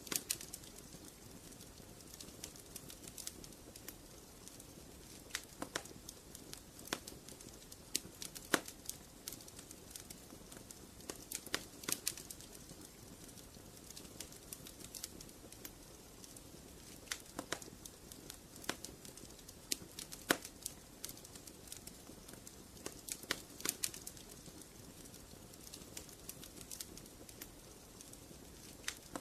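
Wood fire in a fireplace crackling: a soft steady hiss of burning under irregular sharp pops and snaps, some coming in quick clusters.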